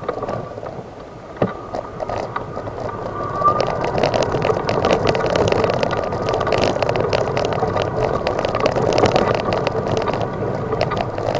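Electric wheelchair rolling along, its wheels rattling and clicking over the ground under a faint steady motor whine; it grows louder a few seconds in.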